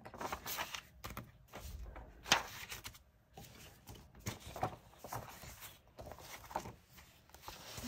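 Sheets of old printed paper rustling and crackling as they are lifted, turned over and laid down by hand, with a few short sharp knocks among them, the sharpest a couple of seconds in.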